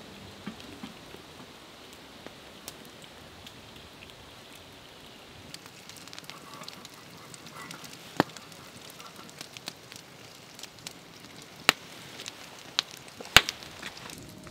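Wood fire crackling over a low hiss, with scattered sharp pops, a few loud ones in the second half.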